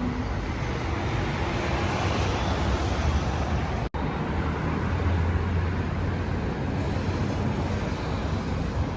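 Steady road traffic noise with a low rumble, cutting out for an instant about four seconds in.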